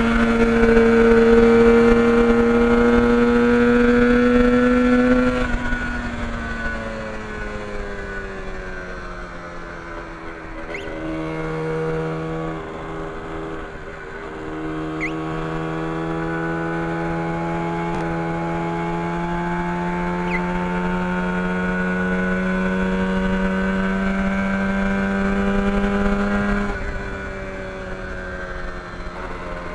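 Yamaha RD400's air-cooled two-stroke twin heard from the rider's seat on the move. It holds a high, steady note, falls away after about five seconds, then pulls again at a lower pitch that climbs slowly before dropping near the end, with wind rumble underneath.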